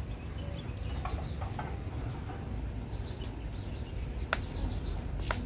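Outdoor aviary ambience: a steady low rumble with faint, scattered bird calls, and two sharp clicks near the end.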